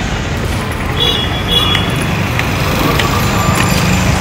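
Steady outdoor background noise with a low rumble throughout, and two brief high-pitched tones about a second in.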